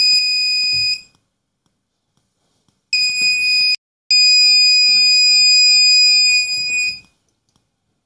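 Active piezo buzzer on an Arduino Uno sounding a steady, high-pitched electronic tone, switched on and off three times: for about the first second, again briefly around three seconds in, then for about three seconds until it cuts off. It sounds while the sketch holds the buzzer pin HIGH, which it does whenever the potentiometer reading is above 1000.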